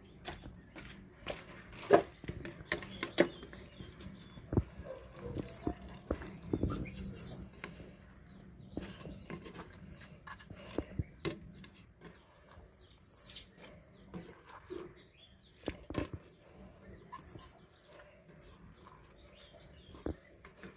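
Handling noise as a cloth is pressed and tucked over a plastic basket: rustling and a few sharp knocks, the loudest about two seconds in. About five short, high chirping calls come through in between.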